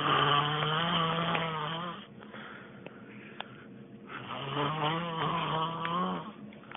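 A person snoring: two long snores, each about two seconds, roughly four seconds apart.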